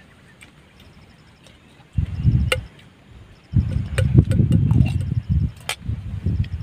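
Gusts of wind rumbling on the microphone in uneven bursts, about two seconds in and again from midway. A few sharp clinks of a spoon on a metal camping pot cut through, over a faint pulsed chirping of insects.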